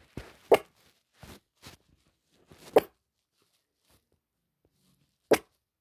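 A small dog sneezing close to the microphone: three loud, short sneezes about half a second, nearly three seconds and just over five seconds in, with softer snuffles between the first two.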